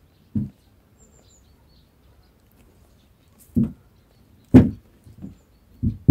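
A string of short, dull thumps and knocks as a tabby cat's paw swats at the phone, the loudest about four and a half seconds in, with several more close together near the end. Faint bird chirps come about a second in.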